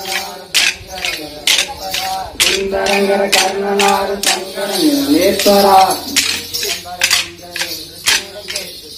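Wooden kolattam sticks clacking together in a steady rhythm, about two strikes a second, as dancers hit them against each other. A voice sings over the clacking in long held notes.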